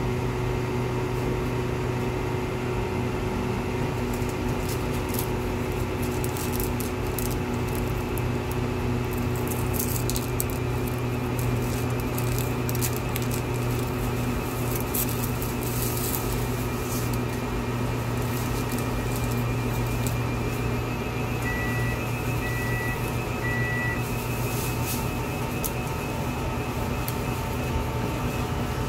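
Convenience-store automatic ramen cooker running while it heats a bowl of instant noodles: a steady electrical hum and fan noise with a light crackle through the middle, and three short beeps about three-quarters of the way through.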